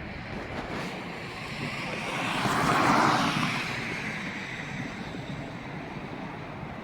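A vehicle passing by: its noise swells to a peak about three seconds in and then fades away.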